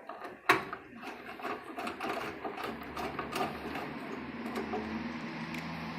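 Electric screwdriver driving a motherboard mounting screw into a PC case: a sharp click about half a second in, a run of clicks and rattles, then the motor running steadily through the second half.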